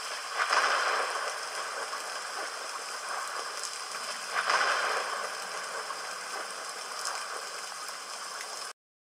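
Storm sound effect: a steady hiss of rain with a few sharp cracks, swelling louder about half a second in and again about four and a half seconds in.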